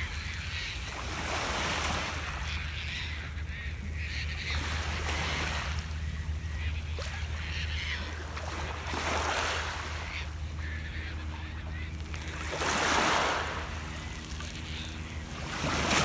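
Small waves on Lake Ontario washing up onto a pebble beach, a swell and hiss every three to four seconds, over a steady low rumble.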